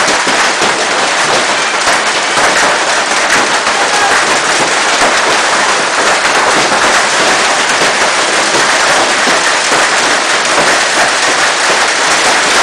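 Hailstones pelting down in a loud, unbroken clatter of countless small impacts.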